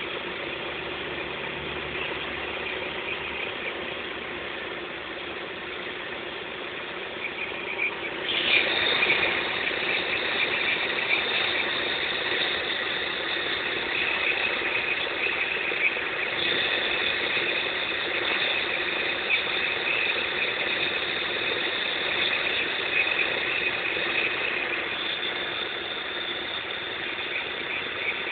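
Opel Vectra B's X20XEV 2.0-litre 16-valve four-cylinder engine running with an unexplained high-pitched squeal. About eight seconds in, the squeal rises in pitch and grows louder, then holds steady.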